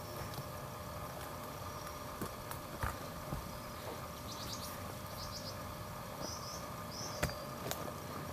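Outdoor trail background: a steady low hiss with scattered light clicks and knocks, and about four short, high, trilling chirps from a small animal around the middle.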